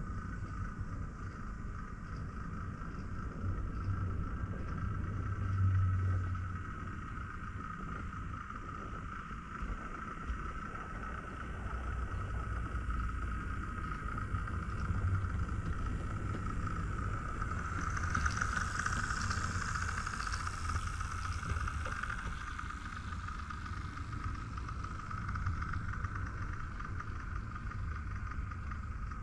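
00 gauge model train running through the layout: a steady low rumble of wheels on track with a higher motor whine, which grows louder for a few seconds about two-thirds of the way through.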